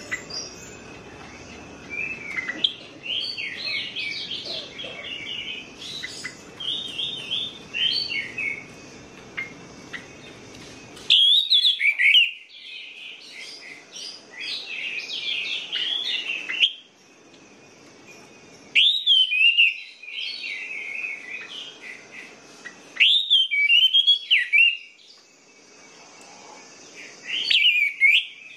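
Orange-headed thrush (anis merah) singing: a rich, varied song of quick warbled and whistled notes. It comes as a run of fast chattering notes at first, then as louder phrases of a few seconds each, several opening with a rising-and-falling whistle, separated by short pauses.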